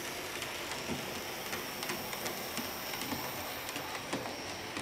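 Märklin BR 74 model steam locomotive and its wagons running around a small loop of model railway track: a steady small-motor whir with a faint high whine and light, uneven clicking from the wheels on the track, two or three clicks a second.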